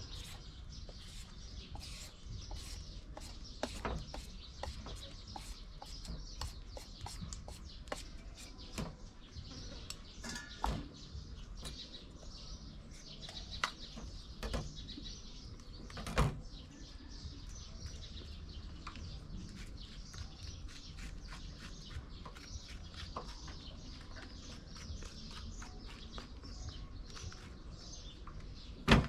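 Small birds chirping steadily in the background, with scattered short clicks and taps from kitchen work. A louder knock comes about halfway through and another right at the end.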